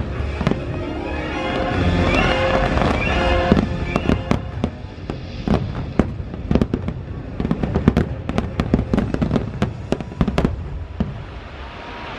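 Aerial fireworks bursting in a dense run of sharp cracks and pops, heaviest through the middle and thinning out near the end, with the show's music playing underneath.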